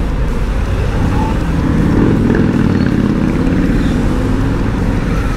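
Harley-Davidson Sport Glide's V-twin engine running steadily as the motorcycle rides through slow traffic.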